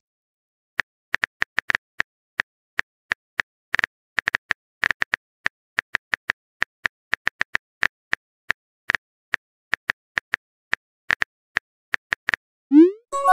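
Phone keyboard tap clicks, short and sharp at several a second with uneven spacing, as a text message is typed out.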